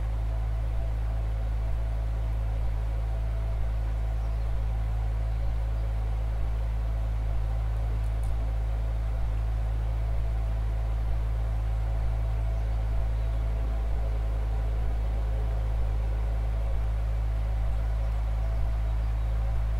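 A steady, unchanging drone of held low organ tones blended with a field recording, several pitches sustained together without change, with a faint pulse about once a second.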